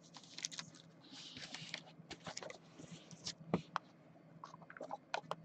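Faint taps, scrapes and rustles of a small cardboard trading-card box being picked up and handled, with the cards inside slid out of it.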